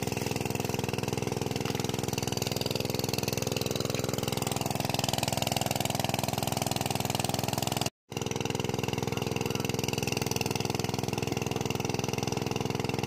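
An engine running steadily at one constant speed, unchanging throughout, with a brief total cut-out about eight seconds in.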